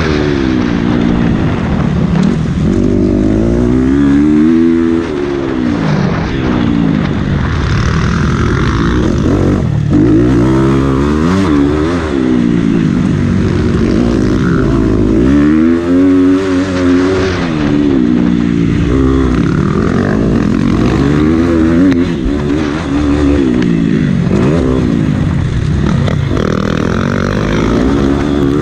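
Motocross bike engine heard from on board, its pitch climbing and falling back over and over as the throttle opens and shuts and the gears change.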